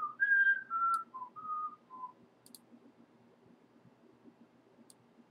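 A person whistling a short tune of about six notes that steps mostly downward in pitch, ending about two seconds in. A few faint clicks follow.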